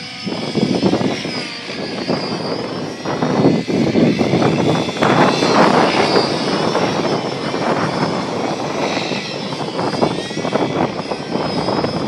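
Wind buffeting the microphone in strong gusts, over the thin whine of a large radio-controlled helicopter flying aerobatics, its pitch wavering up and down.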